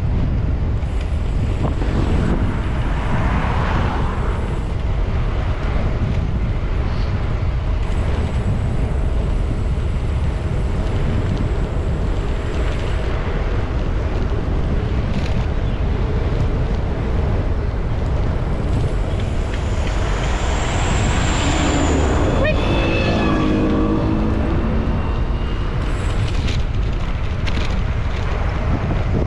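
Wind buffeting the microphone while riding, a steady low rumble. Road traffic passes, with a motor vehicle's engine going by about three-quarters of the way through, its pitch dropping as it passes.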